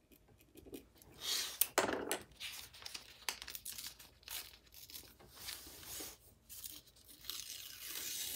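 Sheet of writing paper being torn and crinkled in a few rustling bursts, the loudest about two seconds in and another near the end.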